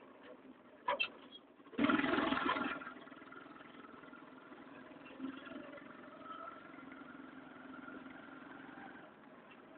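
A vehicle engine running steadily, louder for about a second near two seconds in, after a short click.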